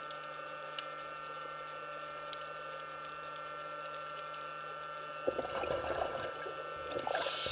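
Underwater: a scuba diver's exhaled breath bubbling out of the regulator, a gurgling burst starting about five seconds in, over a steady hum.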